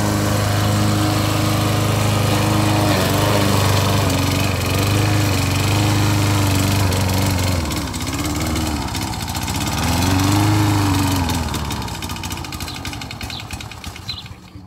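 Engine of a homemade radio-controlled lawn mower running while it mows long grass on a slope, its pitch rising and falling twice in the second half, then the sound fades near the end.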